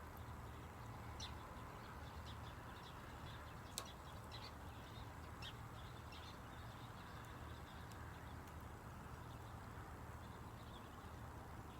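Wood fire crackling faintly, with scattered small pops and one sharper pop about four seconds in.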